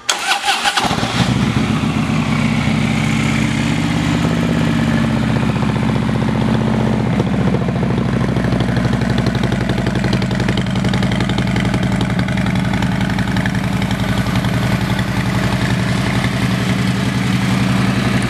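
The 103 cubic inch V-twin of a 2012 Harley-Davidson Street Glide with an aftermarket exhaust is started. It cranks briefly, catches about a second in and runs slightly fast for a few seconds, then settles into a steady idle with an even pulsing beat.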